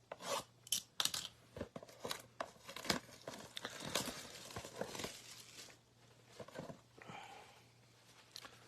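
Plastic wrapping being torn and crinkled as a sealed box of trading cards is opened: a quick run of crackling rips in the first few seconds that thins out toward the end.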